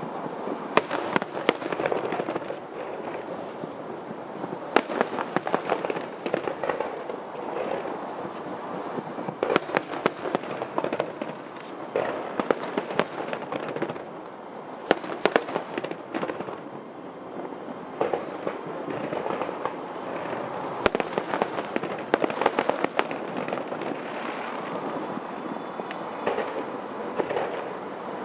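Aerial firework shells bursting in an irregular series of sharp bangs, several close together at times, over a steady background of noise.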